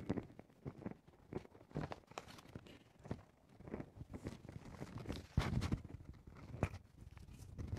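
Irregular shuffling and soft knocks of people moving about, with a firmer thump about five seconds in.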